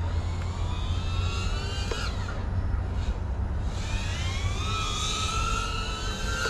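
FPV quadcopter's brushless motors and propellers whining, rising in pitch as the throttle is pushed up. The whine climbs for about two seconds and breaks off sharply, then climbs again from about four seconds in, over a steady low rumble.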